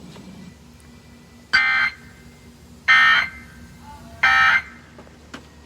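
Emergency Alert System SAME data tones sending the end-of-message code: three short buzzy bursts of digital data, about a second and a half apart, over a faint steady hum.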